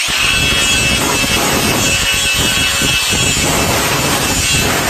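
Angle grinder spinning up and grinding on the steel lawn roller, cleaning a spot down to bare, shiny metal for the welder's ground clamp. It runs steadily with a high whine, then is switched off at the end and winds down with a falling whine.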